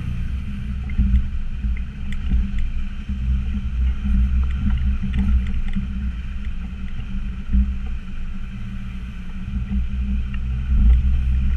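Land Rover Discovery Td5's five-cylinder turbodiesel running while the truck drives over a rough off-road track: a steady low rumble that swells and eases with the throttle, with scattered knocks and rattles.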